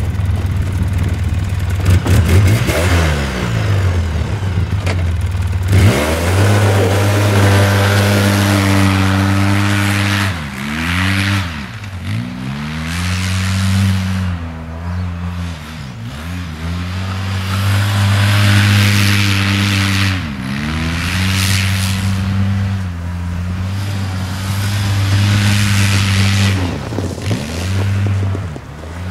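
Polaris Sportsman 700 ATV engine revving up and down again and again as the quad spins donuts in snow, the pitch dropping and climbing back every few seconds.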